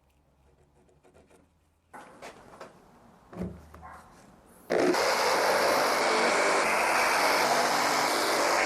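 A few scattered knocks and taps, then background music starts abruptly about five seconds in and carries on loudly.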